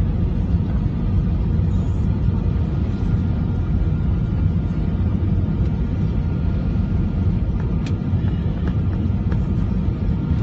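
Airliner cabin noise during the landing: a loud, steady rumble with a faint steady whine from the jet engines above it, and a few faint clicks near the end.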